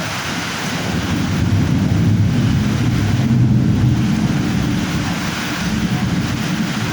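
Storm noise: a steady hiss of heavy rain with wind buffeting the microphone, a low rumble swelling about a second in and easing off after about four seconds.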